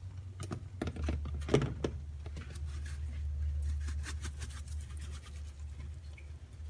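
Old Bay seasoning shaken from its shaker container over shrimp in a pot: a run of light taps and rattles, over a low steady hum.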